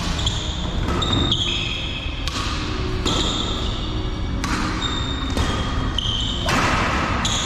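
Badminton rally: sharp racket hits on the shuttlecock about once a second, with sports shoes squeaking on the court floor between them.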